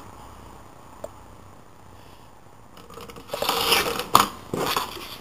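Paper slicer's blade cutting through a piece of cardboard: quiet at first, then a rough scraping cut starting about three seconds in, with a sharp click partway through.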